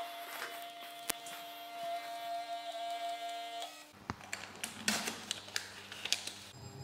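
Small built-in printer of a tensile testing machine printing out the test report: a steady whine for nearly four seconds that stops abruptly, then a run of clicks and paper rustling as the printout is torn off and handled.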